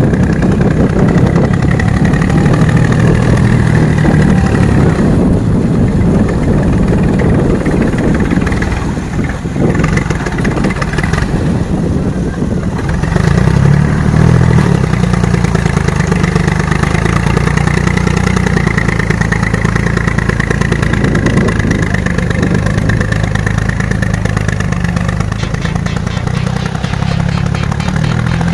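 Heavy machine's engine running steadily, easing off about nine seconds in and picking up again around thirteen seconds.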